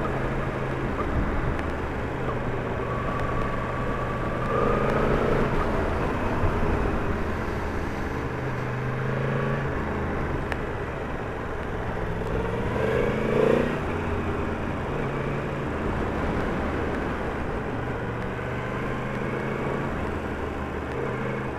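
Yamaha MT-10 motorcycle under way: its crossplane inline-four engine runs at changing revs, the pitch stepping up and down every few seconds, over a steady rush of wind and road noise.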